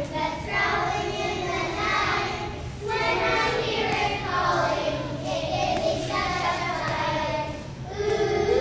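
A group of young children singing together, choir-style, in phrases with short breaks about three and eight seconds in.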